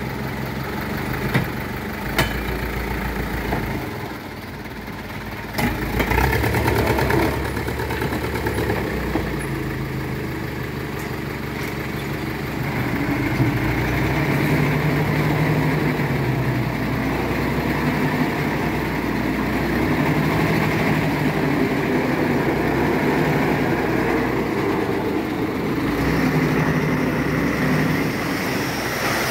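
Old dump truck's engine running, with two sharp knocks in the first few seconds and a surge in revs about six seconds in. From about halfway it is held at higher, steady revs to drive the hydraulic hoist that slowly tips the loaded bed, an old tipper that is hard to unload.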